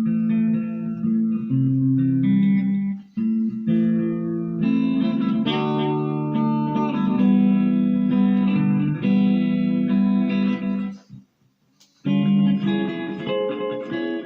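Electric guitar played through a Marshall MG15GFX 15-watt 1x8 combo amp with its delay effect switched on: sustained notes and chords. The playing stops about eleven seconds in and starts again a second later.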